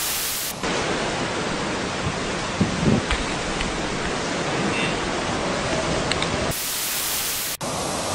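Hurricane wind and surf: a loud, steady rushing noise with a few low thumps about three seconds in. Near the end it is broken by a second of harsher, static-like hiss.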